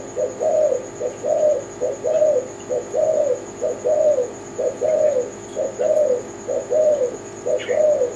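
Spotted dove (tekukur, Kelantan type) cooing: an even, unbroken series of low coos, each a short note followed by a longer, arched one, about one and a half pairs a second. A faint chirp from another bird comes near the end.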